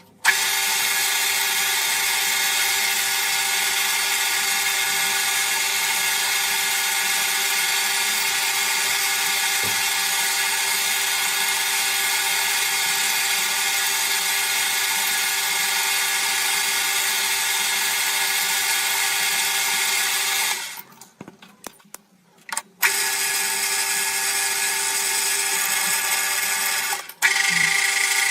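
CNC lathe machining a part: a steady, even machine whine made of many layered tones. It cuts out for about two seconds roughly two-thirds of the way through, with a few clicks, then resumes, and drops out briefly once more near the end.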